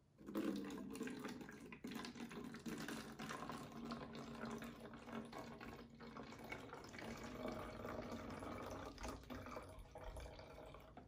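Water poured in a steady stream from a small steel cup into a plastic water bottle. The pour starts suddenly and fades a little before it stops.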